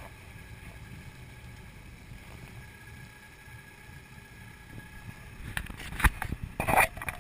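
A Mastercraft 190's Mercruiser V8 inboard runs low and steady at slow speed. Starting about five and a half seconds in, sudden loud gusts of wind and water splashing hit the microphone as the boat speeds up.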